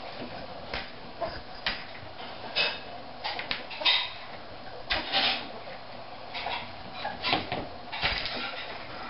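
A ferret's claws scrabbling and skittering on a tile floor as it chases and pounces on a feather wand toy: irregular scratchy scuffles and soft knocks, with a few louder bursts in the second half.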